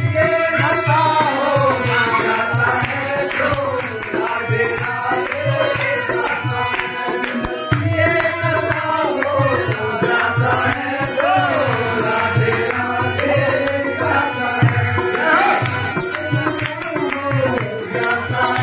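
Hindi devotional bhajan sung by a man with a group, over fast, even jingling from hand-held wooden clappers with metal jingles and a steady low drum beat.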